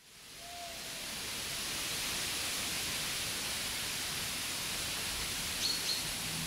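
Outdoor woodland ambience fading in from silence: a steady, even hiss, with a short high chirp about five and a half seconds in.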